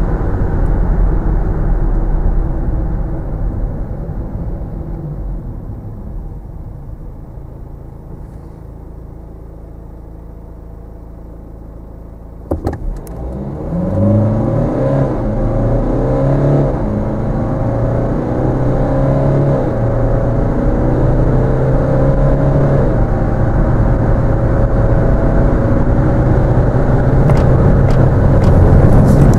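BMW X3 xDrive20d's 2.0-litre turbocharged four-cylinder diesel heard inside the cabin. Over the first dozen seconds the engine sound fades as the car slows from about 100 km/h. After a sharp click, the engine pulls hard again from low speed, its pitch rising and then dropping back at each upshift of the 8-speed automatic, growing louder to the end.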